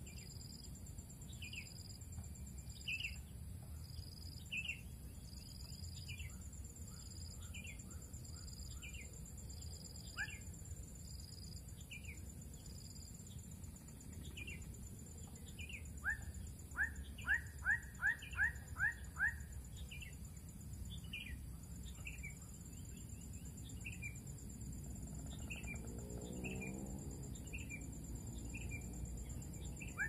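Birds calling in a field edge with short, repeated upward chirps, including a quick run of about six louder chirps about halfway through, over a steady high-pitched insect trill and low background rumble.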